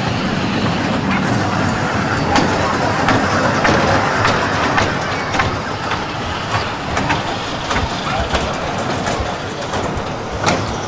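Small fairground kiddie train running on its narrow rail track, with irregular clicks of the wheels over the rail joints.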